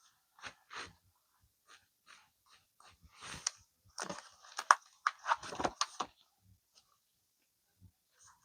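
Paper and card of a handmade envelope journal being handled and pressed: scattered rustling and crinkling, busiest in the middle few seconds.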